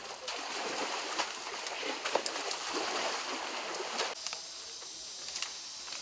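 Sumatran elephants walking through forest undergrowth and shallow water: a dense rustling with sharp cracks of snapping twigs and splashing. About four seconds in it cuts off to a quieter forest background with a faint steady high hum.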